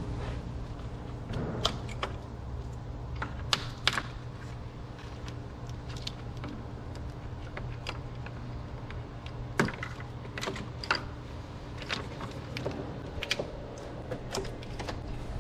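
Irregular light clicks and clinks of hand tools and parts being handled during radiator removal, over a steady low hum.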